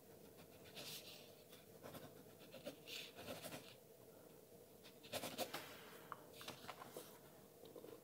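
Faint scratching of a ballpoint pen with a Schmidt P900 refill writing on paper, coming in several short spells of strokes with pauses between them.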